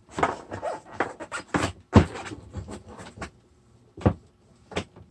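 Rubber tire being worked off a Onewheel Pint hub by hand: a quick run of rubbing, scraping and small knocks of tire against rim, then two separate knocks near the end.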